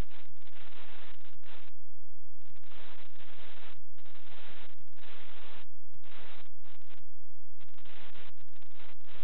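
A steady low electrical hum under harsh bursts of hiss-like static that cut in and out irregularly, each lasting about half a second to a second and a half.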